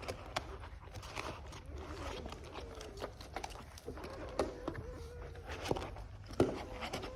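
Puppies nursing from their mother: faint thin whimpers and squeaks over many soft suckling and smacking clicks, with one sharper knock about six seconds in.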